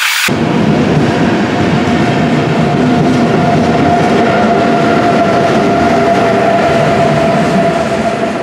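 Intercity train departing behind a DB Class 101 electric locomotive: the steady electric whine of its GTO-thyristor traction inverters and three-phase traction motors over the rumble and clatter of the coaches' wheels on the rails.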